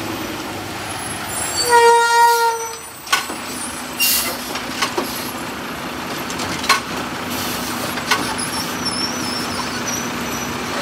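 A horn sounds once for about a second, then the Mack LR / Heil Rapid Rail automated side-loader garbage truck's engine and hydraulics run steadily while its arm works. Several sharp clunks and knocks come as the grabber clamps a trash cart, lifts it and tips it into the hopper.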